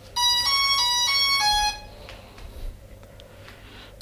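Hubsan Zino 2 drone's power-on tune: a quick run of five electronic beeps, four alternating between two close pitches and a lower last note.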